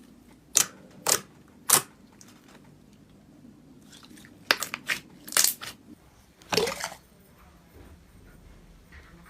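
Slime being squeezed and poked, giving sharp popping clicks: three spaced pops, then a quick cluster of them midway, and a longer crackly squelch about six and a half seconds in.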